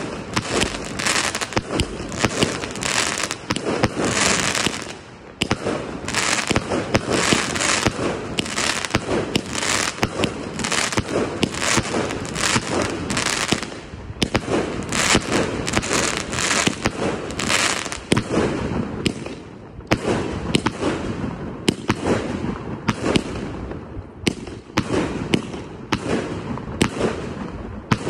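Baraat 160-shot compound cake barrage firing: a rapid, unbroken run of shots lifting and bursting, several a second, with a brief lull about five seconds in.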